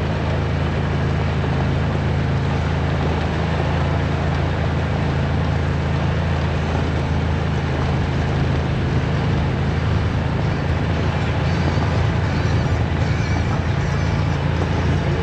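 ATV engine running steadily under way on a trail, an even low drone with no let-up or sharp events.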